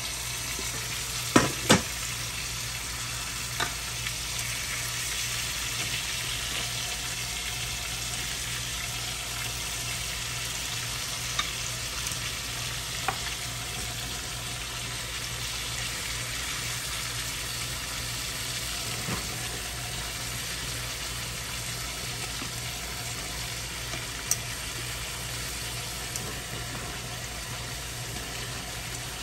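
Chicken pieces frying in hot olive oil in a pan on high heat, a steady sizzle as more pieces go in. A few sharp clicks cut through it, the loudest two close together about a second and a half in.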